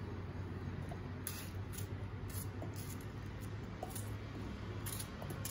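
Faint, soft cuts of a small kitchen knife slicing through ripe tomatoes held in the hand, with a few small scattered clicks, over a steady low hum.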